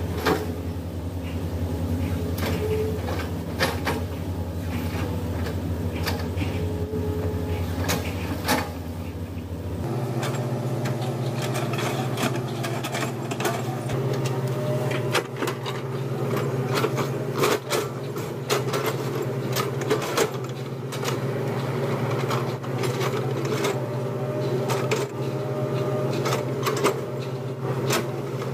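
Hydraulic excavator's diesel engine running steadily, with repeated metallic clanks and knocks. The engine's hum shifts abruptly to a different steady note about ten seconds in.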